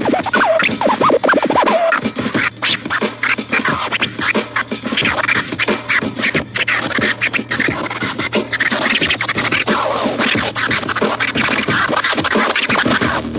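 DJ scratching on portable turntables, played through a portable speaker: a record sound is dragged back and forth in quick up-and-down pitch sweeps and chopped into short cuts.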